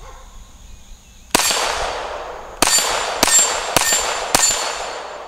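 Five shots from a Glock 44 .22 LR pistol, each followed by the ring of a round steel target being hit. The first comes alone about a second in, then four more follow about half a second apart, the ringing running on and fading after each.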